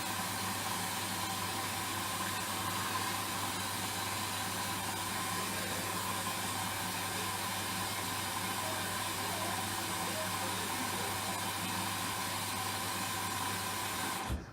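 Hoover washing machine filling with water for its second rinse: a steady hiss of water running in through the inlet, with a constant hum beneath it, cutting off suddenly near the end.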